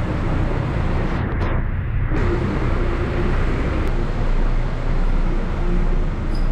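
Steady street traffic noise from vehicle engines running close by, with a deep rumble.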